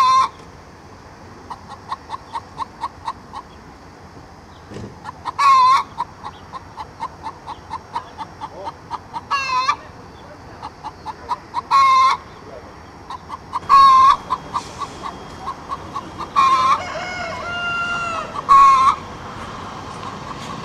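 Hen clucking: a steady run of short clucks, about four a second, broken every two to four seconds by a louder drawn-out call.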